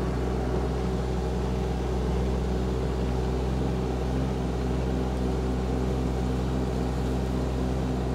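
KYMRON ZX22D mini excavator's Yanmar diesel engine running steadily as the machine travels in its low (one) speed. The pitch and level stay even throughout.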